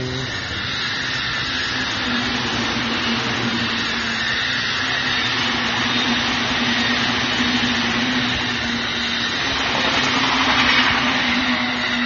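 Electric commuter train running past on the track alongside: a steady loud rush of wheels on rail with a steady hum under it, swelling about ten seconds in and then easing off.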